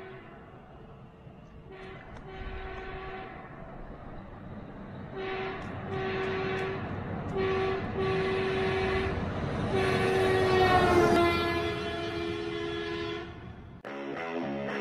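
Train horn sounding a series of long and short blasts over the rumble of the train, growing louder as it approaches, its pitch dropping about eleven seconds in as it passes. Guitar music starts near the end.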